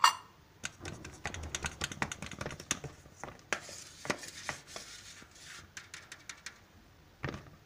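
A sharp knock as a small glass bowl meets a wire-mesh sieve while baking powder is tipped in, then a spoon tapping and scraping on the sieve's mesh and rim to push the powder through: many light clicks, with a stretch of scraping in the middle.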